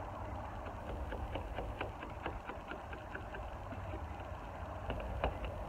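A plastic hard card scraping and ticking as it tucks the edges of perforated window vinyl into a truck's rubber window trim: many faint, irregular little clicks. A steady low rumble sits under them.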